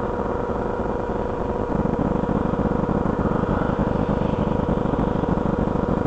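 Cars driving past one after another on a road, a steady mix of engine and tyre noise that grows louder about two seconds in as a car comes close.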